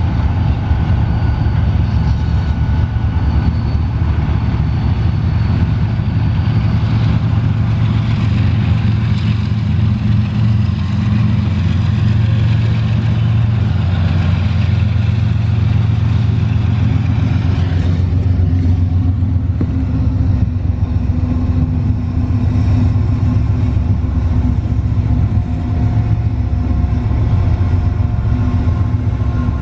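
GE ES44 diesel-electric freight locomotives (ES44C4 and ES44AH) passing slowly at close range: a loud, steady low diesel engine rumble.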